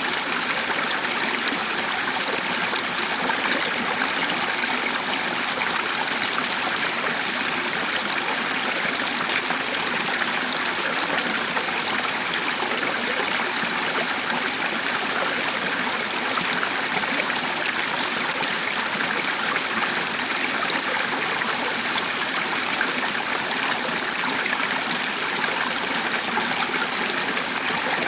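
Stream of running water, a steady even rush that does not change.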